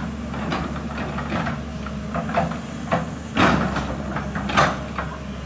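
JCB tracked excavator's diesel engine running steadily while its bucket digs into the roadside bank, giving a run of knocks and scrapes against the soil. The two loudest clunks come about halfway through and about a second later.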